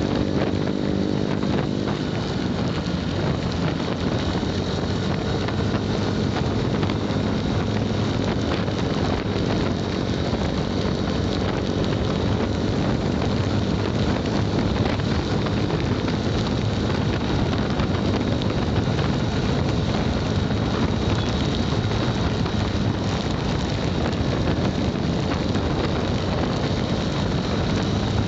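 Steady wind rush over the microphone of a motorcycle riding in heavy rain, with the engine and road noise running underneath.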